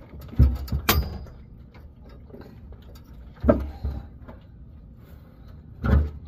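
Three heavy clunks about three seconds apart, with a sharp metallic click just after the first and small knocks in between, as the fuel tank is worked back up under the truck on a jack.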